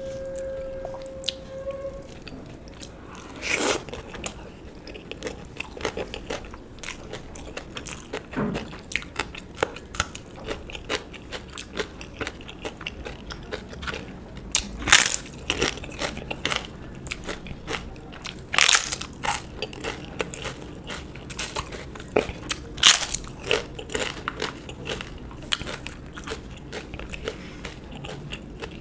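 Close-miked eating sounds: steady chewing and small wet mouth clicks, broken by about four loud crunching bites of something crisp.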